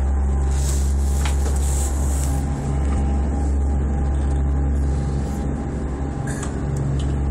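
A motor boat's engines running steadily underway, a deep drone heard from inside the wheelhouse.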